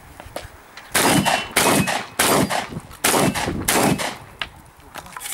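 Five close shotgun shots in a quick string, about half a second apart with a slightly longer gap after the third, each followed by a short echo.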